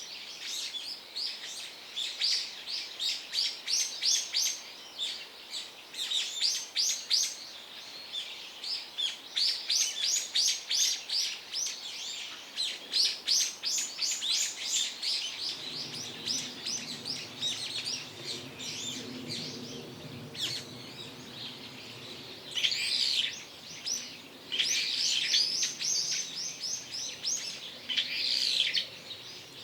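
Birds chirping in quick runs of high, rapid chirps. About halfway through, a low steady hum comes in beneath them.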